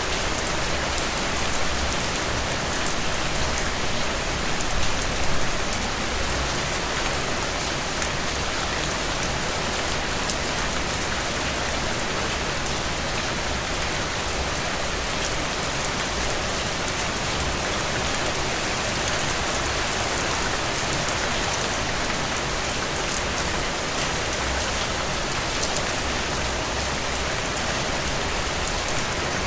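Steady heavy rain falling on a surface, with dense drips and drops pattering throughout; it swells slightly a few seconds in.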